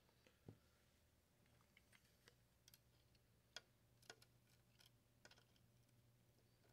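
Near silence with a faint low hum and a few faint, irregular ticks and clicks from desoldering work: a soldering iron and desoldering braid pressed against a circuit board's solder pads.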